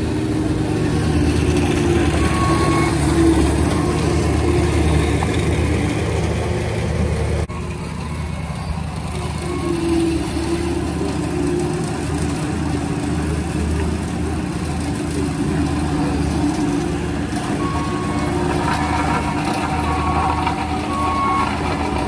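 Engine of a skid-steer loader fitted with a rotary broom attachment, running steadily as it works. The sound dips briefly about seven seconds in and then carries on at a steady level.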